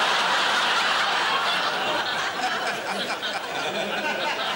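Studio audience laughing, easing off a little about halfway.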